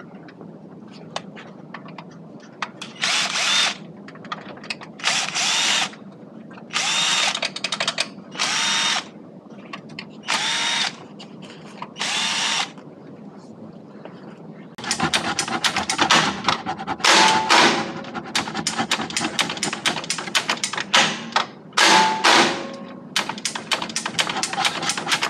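Cordless drill/driver whirring in six short bursts of about a second each, followed by a long stretch of rapid clicking and rattling broken by brief whirs.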